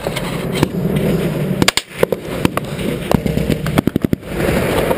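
Firefight gunfire: sharp, irregularly spaced shots, with two quick runs of several rounds, one about a third of the way in and one near the end.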